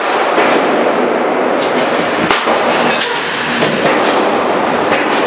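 Pellet gun fired several times, short sharp pops at irregular intervals about a second apart, over a steady rushing background noise.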